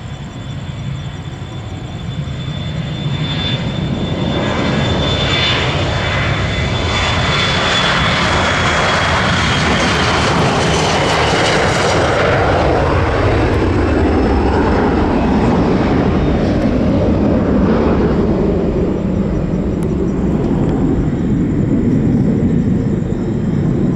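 Jet airliner's engines at takeoff thrust, growing louder over the first few seconds. A high fan whine sinks slightly in pitch as the plane passes about ten to twelve seconds in, then a deep rumble carries on as it climbs away.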